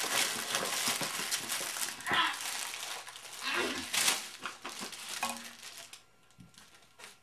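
Crinkling and rustling of packaging being handled and torn into, with a few short throaty vocal noises in the middle; it stops about six seconds in.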